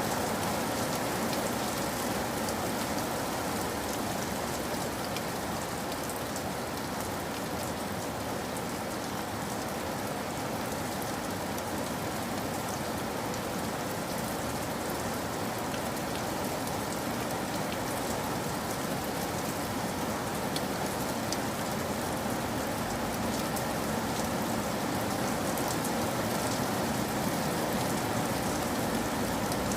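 Steady rain falling, an even hiss of rain with a scatter of individual drops ticking on surfaces.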